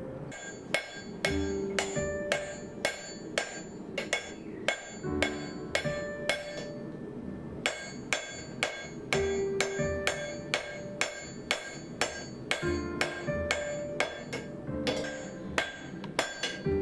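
A hand hammer strikes a red-hot steel axe blank held in tongs on a steel anvil, about two blows a second, each with a bright metallic ring. There is a short pause about halfway through.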